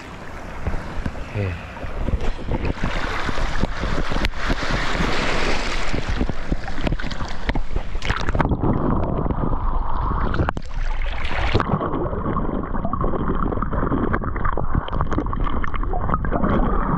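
Shallow sea water sloshing and splashing over rocks close around the microphone. About eight seconds in, the microphone goes under the surface and the sound turns muffled: a low underwater rumble with scattered faint clicks.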